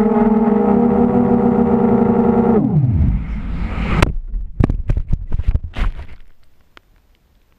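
Blackout Mini H quadcopter's four brushless motors and propellers buzzing steadily, then about two and a half seconds in their pitch falls away sharply as the motors spin down when the receiver goes into failsafe. The falling quad then hits the grass with a run of sharp knocks and clatters as it tumbles.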